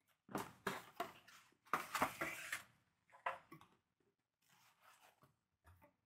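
Packaging rustling and crinkling as a sheet of packing material and a small box are handled and pulled from a cardboard box. Several bursts of rustling in the first half, then fainter rustles.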